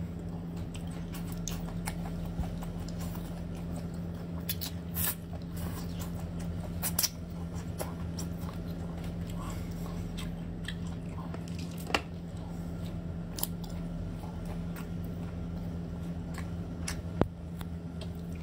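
Close-up eating of small octopus in spicy sauce: wet slurping and sucking as the tentacles are drawn into the mouth, with chewing, lip smacks and scattered small clicks, a few of them sharp and louder. A steady low hum sits underneath.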